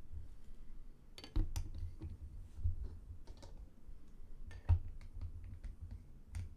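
Computer keyboard typing: irregular clicks and taps, a few at a time with pauses between, over a low rumble.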